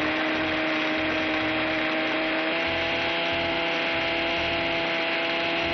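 Indian mixer grinder running with its stainless steel jar held down by hand, grinding grated raw mango, dates, mint, green chilli, dry coconut and tamarind into a gojju paste. A steady motor whine over the churning of the jar, its pitch stepping up slightly about two and a half seconds in.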